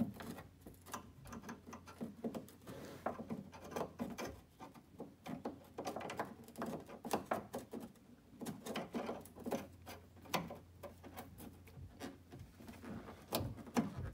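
Irregular small clicks, taps and scrapes of a replacement door lock cylinder being fiddled into its opening in a 1974 Corvette door, under a faint steady low hum that stops about twelve seconds in.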